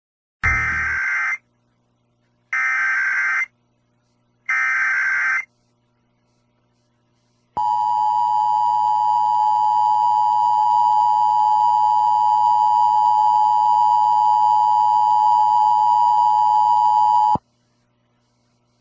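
Emergency Alert System test broadcast on Sirius XM radio. It opens with three SAME header data tones, each a harsh electronic warble about a second long, two seconds apart. After a pause comes the EAS two-tone attention signal, a steady shrill tone lasting about ten seconds that cuts off suddenly.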